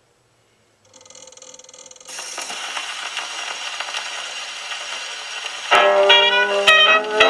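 Brunswick phonograph playing a 1920s 78 rpm jazz record: the needle settles into the groove about two seconds in, giving a steady surface hiss with crackles, and the jazz band starts loud near six seconds in.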